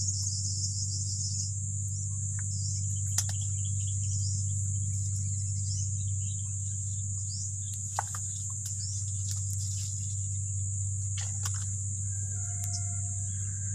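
A steady high-pitched insect chorus of crickets or similar insects chirring, over a steady low hum. A few sharp clicks and snaps stand out about three, eight and eleven seconds in, with a few short chirps and tonal notes near the end.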